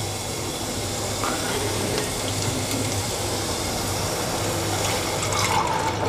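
Water being poured steadily into a hot cooking pot of freshly sautéed vegetables.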